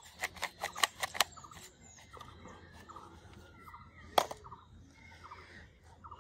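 A quick run of sharp plastic clicks and taps in the first second or so as a toy soldier action figure is handled, then one more sharp click about four seconds in. Faint birds chirp in the background.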